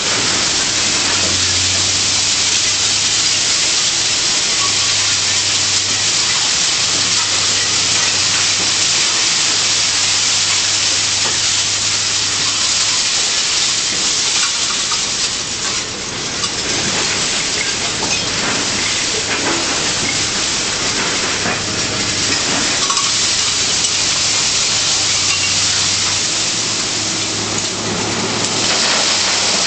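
Shredded material pouring off a container loader's conveyor into a steel shipping container: a loud, steady, rain-like hiss of pieces landing, with a low machine hum that comes and goes.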